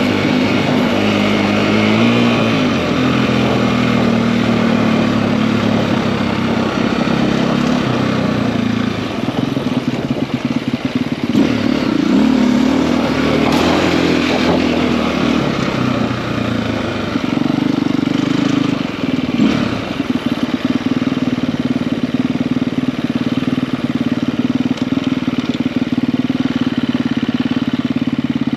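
KTM EXC-F enduro motorcycle with a 280 cc big bore kit, its single-cylinder four-stroke engine running under way, revs rising and falling through the first half with brief dips in loudness. It then holds a steady engine note for roughly the last ten seconds.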